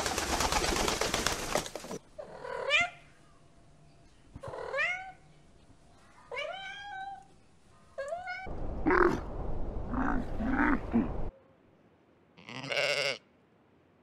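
A flock of pigeons takes off in a burst of wing flapping, then a domestic cat meows four times, each meow rising and falling. A louder, rougher sound about three seconds long follows, and near the end comes one short bleat, likely from a sheep.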